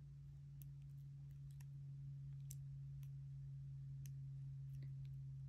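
Scattered faint clicks of strung rhinestone and seed beads knocking together and against fingernails as a beaded stretch-cord strand is knotted by hand, over a steady low hum.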